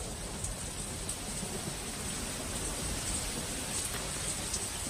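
Monsoon rain falling steadily: an even hiss of heavy rain with faint scattered drop ticks.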